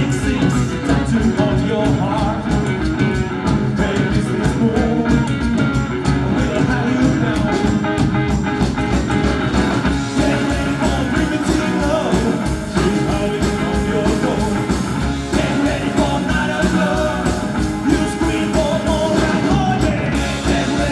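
Live rock and roll band playing with a steady beat: upright bass, drums, and electric and acoustic guitars, with a man singing lead.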